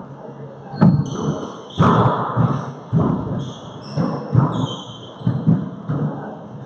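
A four-wall handball rally: the rubber handball is smacked by gloved hands and rebounds off the court walls and floor, giving several sharp, echoing smacks about a second apart. Sneakers squeak on the hardwood floor between the hits.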